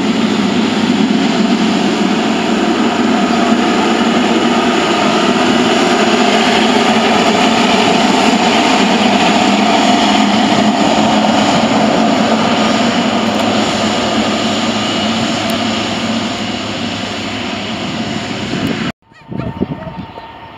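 Jet engines of a Boeing 777 taxiing close by: a loud, steady engine whine over a rumble. Near the end the sound cuts off abruptly and comes back quieter and more distant as the jet rolls on the runway.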